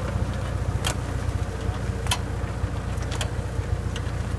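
Tractor engine running steadily while pulling a Checchi & Magli Wolf two-row transplanter, with sharp clicks about once a second from the planter's mechanism as it sets pepper seedlings.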